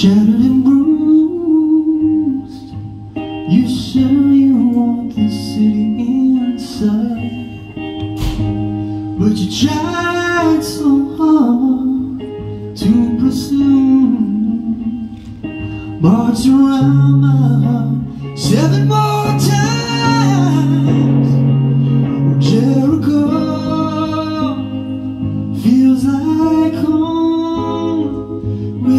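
Live song: a man singing to his own guitar accompaniment, with a long held low note in the middle.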